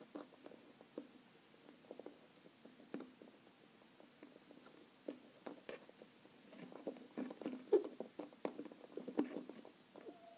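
Fingers handling a plastic Schleich horse figure while fitting a cord halter on it: faint scattered small taps and rubbing clicks, busier in the second half.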